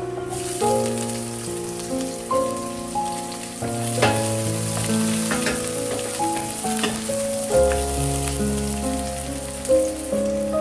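Food sizzling as it fries in a pan, a steady hiss heard over background music with a melody of held notes.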